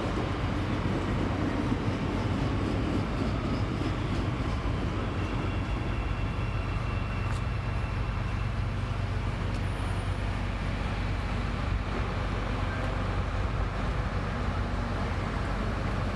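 CTA Red Line elevated train running past on the embankment, a steady rumble of wheels on the rails.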